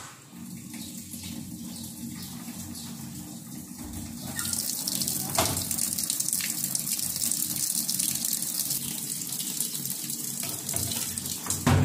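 Top-loading washing machine filling: water rushing into the drum over a steady low hum, the water noise growing louder about four seconds in. The machine is taking in water normally after its water-level pressure tube was repaired. A short thump near the end.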